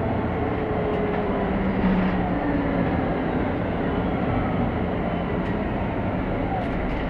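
Cabin noise of a MAN NG363 articulated city bus on the move: a steady diesel engine drone under road and body rumble.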